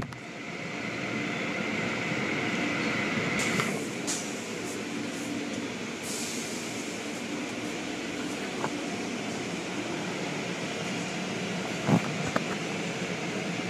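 Automatic car wash machinery running steadily, with cloth brushes sweeping and slapping across the car. A high hiss in the first few seconds stops sharply, and a few short knocks come through, the loudest about twelve seconds in.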